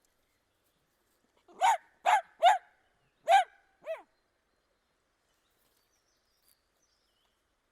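Dachshund barking: five short, sharp barks in quick succession starting about a second and a half in, the last one softer.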